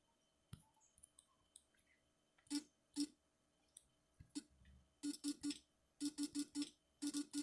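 Phone's on-screen keyboard giving a short plucky tone for each key tap, as a message is typed: a few single taps, then quick irregular runs of taps from about five seconds in.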